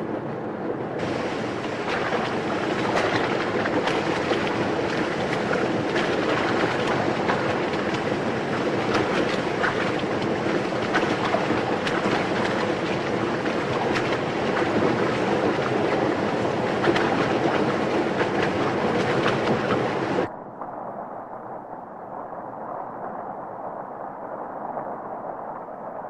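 Steady rush of water pouring down a dam's fish ladder of concrete pools. About twenty seconds in it cuts off abruptly to a quieter, duller rush.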